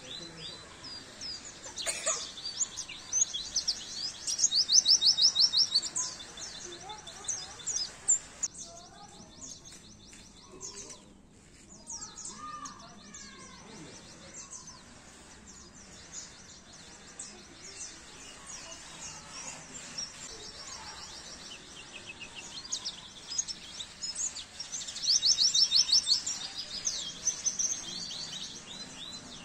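White-eye (pleci) song: fast, high twittering chirps. Louder runs of rapid repeated notes come about four seconds in and again near the end.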